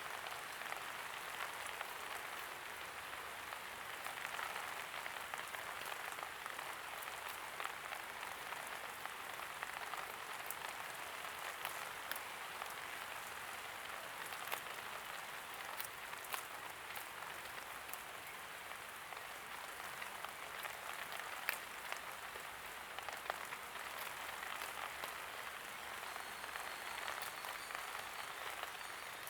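Light rain falling steadily: an even patter with many individual drops ticking sharply on hard surfaces.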